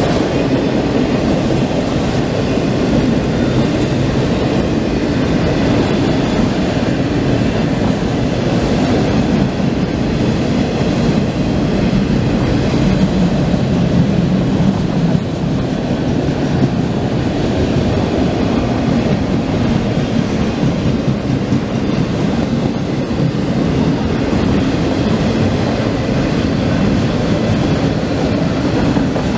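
CSX freight train of enclosed autorack cars rolling past, a steady rumble of steel wheels on the rails, heaviest in the low range and unchanging in level.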